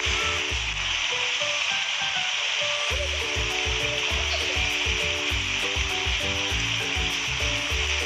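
Woodpecker tapping on tree wood, a rapid run of light taps, over a steady high hiss.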